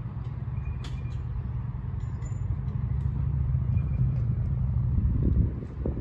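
Vintage electric tram running along its rails: a low rumble of motors and wheels that grows louder, with a sharp click about a second in.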